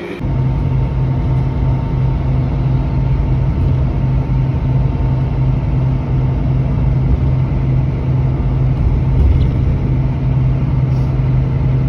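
Steady low rumble and hum of a road vehicle driving, heard from inside through the window glass as it crosses a bridge. The sound cuts in suddenly right at the start.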